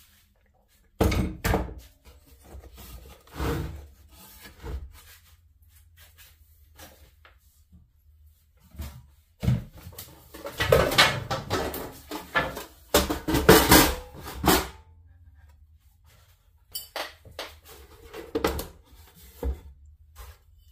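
Irregular knocks and thunks of hard pieces being handled and set down, with a dense run of clattering and rustling about halfway through.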